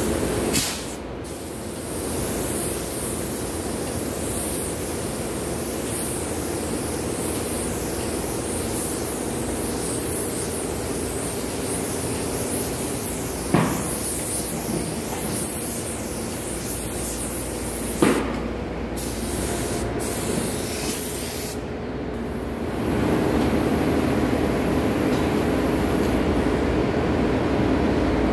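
Compressed-air paint spray gun hissing steadily as a dark finish is sprayed onto a wooden desk, with short breaks in the hiss where the trigger is let off. Three sharp knocks come through it, and a steady machine hum underneath grows louder about three-quarters of the way through.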